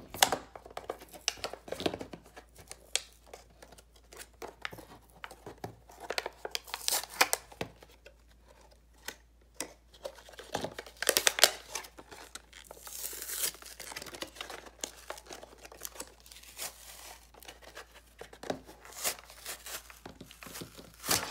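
Cardboard toy box being torn open by hand: irregular rips and crinkles of paperboard, loudest a little past halfway through.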